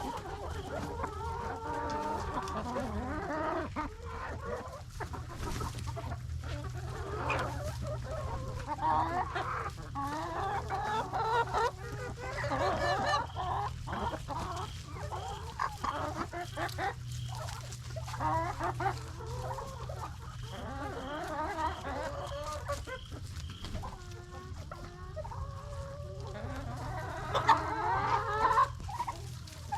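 A flock of chickens clucking and calling while they feed, many overlapping calls with scattered short clicks, over a steady low hum.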